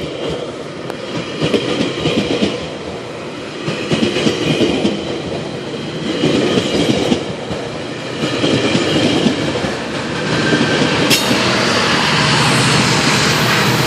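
GO Transit bilevel passenger coaches rolling past close by with a steady clatter of wheels over the rail joints. Near the end the train's diesel locomotive comes alongside and the sound gets louder, with the engine's low steady drone under the rail noise.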